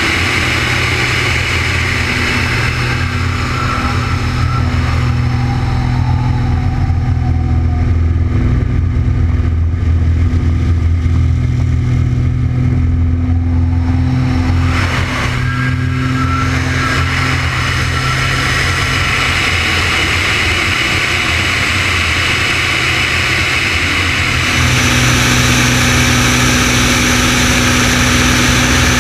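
The Extra 300L's six-cylinder Lycoming engine and propeller running under power, heard from a wing-mounted camera with wind rushing past. The engine grows louder in the middle and changes tone about 25 seconds in.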